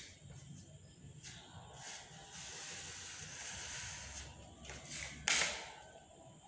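Sandpaper rubbed by hand over a puttied plaster wall, making a steady hiss with a few short strokes. About five seconds in there is one loud, sharp scrape or knock.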